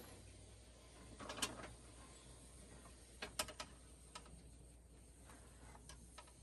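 Faint scattered clicks and small scrapes of a hot glue gun and metal tweezers being handled, with a cluster of clicks about a second and a half in and a sharper cluster about halfway through.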